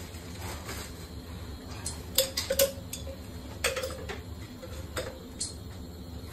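Hard plastic clicks and knocks as grey PVC pipe fittings are handled and fitted together: a quick run of three sharp clicks about two seconds in, then single clicks a second or so apart, over a steady low hum.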